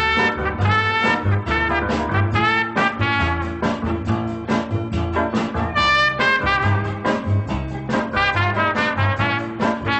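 Swing-style music with brass, trumpets and trombones over a steady bass beat.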